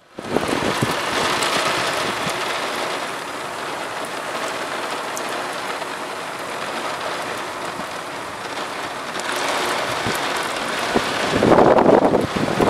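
Rain falling steadily, a continuous hiss, swelling louder with a gust of wind near the end.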